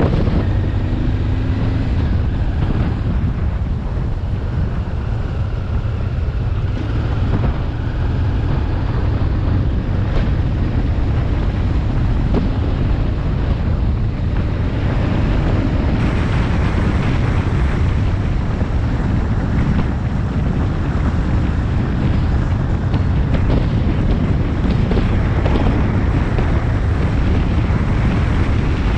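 Wind buffeting the microphone of a camera mounted on a moving Honda XRV 750 Africa Twin motorcycle, over the steady low rumble of its V-twin engine.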